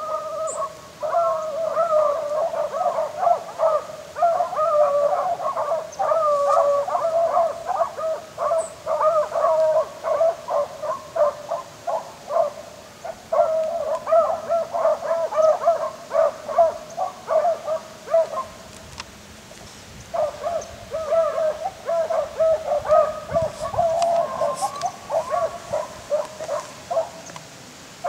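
A pack of rabbit hounds baying in chorus as they run a rabbit's track, many voices overlapping, with a lull of about two seconds a little past halfway before the baying picks up again.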